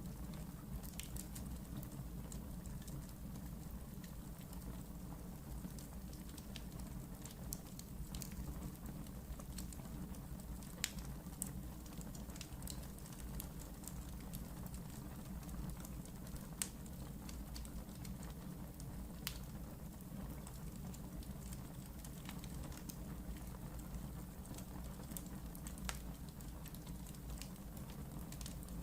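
Wood fire burning in a fireplace: a steady low rumble with scattered crackles and a few sharper pops of the burning logs.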